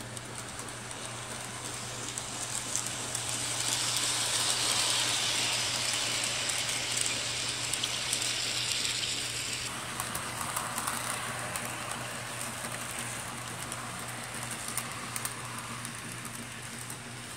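HO scale model train running on its track: a rolling rattle of wheels and motor that grows louder about four seconds in as the cars pass close, and eases off after about ten seconds, over a steady low hum.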